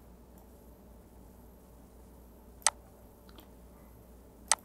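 Computer mouse clicks: two sharp single clicks about two seconds apart, the second near the end, with a couple of fainter ticks between them, over a faint steady hiss.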